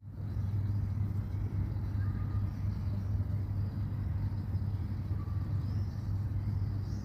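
A steady low rumble, like an idling engine or nearby traffic.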